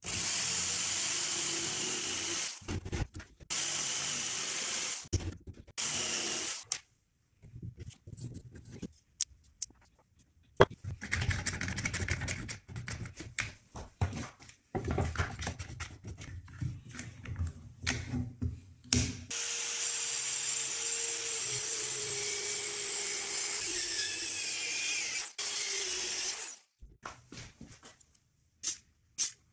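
Bosch jigsaw cutting a wooden board in three bursts of a few seconds each. Irregular knocks and clatter of wood pieces and a clamp follow, then a power tool runs steadily for about seven seconds, its pitch slowly falling.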